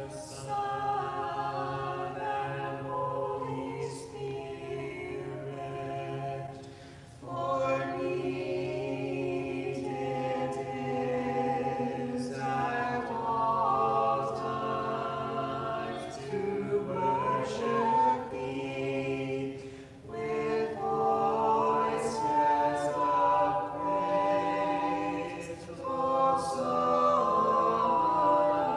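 Church choir singing an Orthodox vespers hymn a cappella in several voices, with a low note held under the melody for the first several seconds. The phrases break briefly twice.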